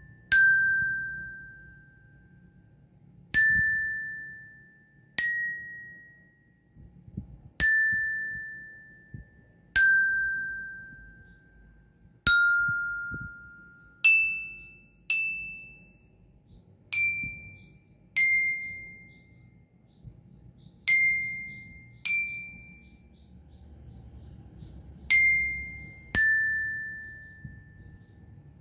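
Marching bell lyre's aluminium bars struck with a mallet one note at a time, slowly picking out a melody. About fourteen single notes come a second or two apart, each ringing and fading before the next. The tune climbs higher in the middle and comes back down near the end.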